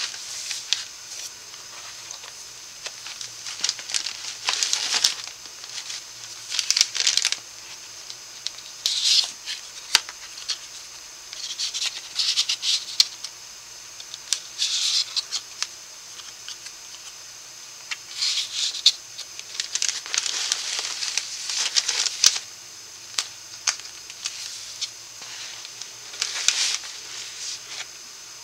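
Paper and card rustling and sliding in short, irregular bursts as a handmade paper scrapbook folio is unfolded and its panels and tucked-in cards are handled, with light taps and clicks between.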